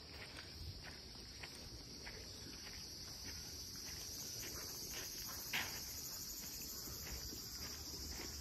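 A steady, high-pitched insect drone outdoors, creeping slightly upward in pitch, with faint regular steps about twice a second and one sharper tap about halfway through.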